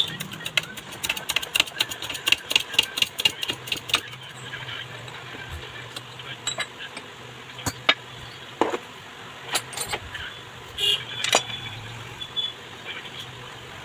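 Rapid, even metallic clicking, about four or five clicks a second, that stops abruptly about four seconds in, followed by scattered clinks and knocks of small metal parts being handled during ceiling fan repair.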